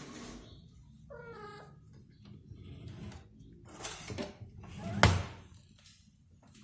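A domestic cat gives a short meow about a second in. Rustling noises follow, then a sharp knock about five seconds in, the loudest sound.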